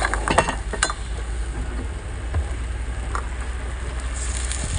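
A metal spatula clinks and scrapes in a wok of seafood in the first second, over a steady low rumble. A little after four seconds a hiss starts as water is poured from a jug into the hot pan.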